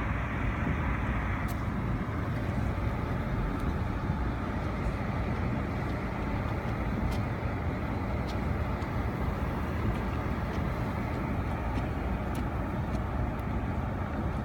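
Blizzard wind blowing steadily and buffeting the microphone, a dense low rumble with a few faint ticks.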